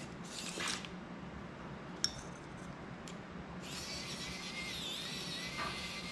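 Small metallic clicks and clinks of a screwdriver on screws in a plastic FPV cinewhoop frame. A bit past halfway a steady high-pitched whine with hiss comes on and holds, as the drone's electronics are powered up.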